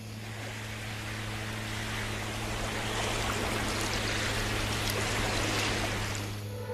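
Sea waves washing on a beach: a steady rushing noise that swells slowly, with a low hum beneath it. A few faint clicks come in the second half as a cassette is loaded into a portable cassette player and a key is pressed.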